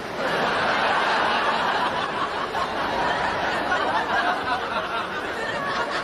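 Studio audience laughing: a wave of laughter that starts suddenly and slowly tapers off near the end.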